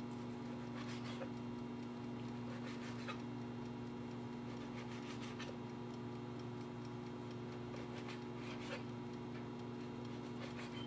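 Knife slicing blanched abalone on a cutting board: a few soft taps and scrapes a couple of seconds apart, over a steady electrical hum from a kitchen appliance.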